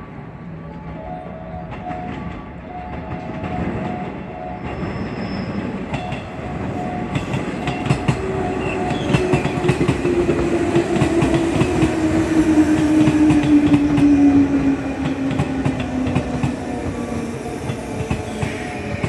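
Electric commuter train coming into a station platform, its wheels clattering over the rail joints as it grows louder. A motor whine glides steadily down in pitch in the second half as the train slows.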